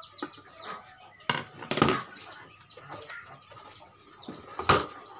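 An old metal amplifier case being handled and set down on a wooden table: a knock about a second in, a clatter near two seconds, and a sharp knock near the end. Birds chirp quickly and steadily throughout.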